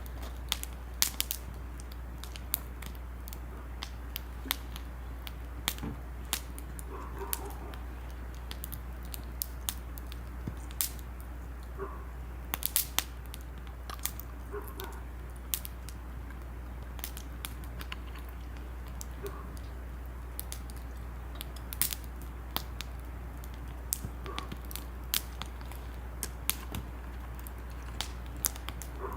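Firewood burning, crackling with irregular sharp pops, sometimes several in quick succession, over a steady low hum.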